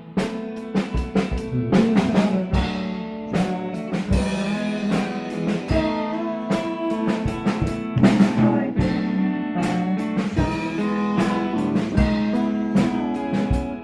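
Live band playing an instrumental passage: a drum kit keeps a steady beat under guitar and other melody instruments.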